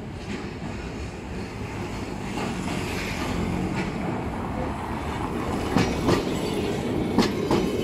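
Vintage Milan 'Ventotto' Peter Witt-type tram of the 1500 class rumbling past on its steel wheels, growing louder as it approaches. In the last two seconds its wheels clack sharply over the rail joints four times, in two quick pairs.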